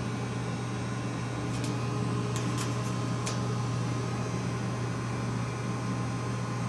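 Steady low machine hum, as of idling shop machinery, with a few faint light clicks about two to three seconds in.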